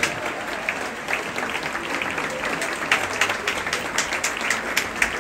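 A theatre audience applauding: dense, even clapping from many hands, with sharper individual claps from hands close by standing out.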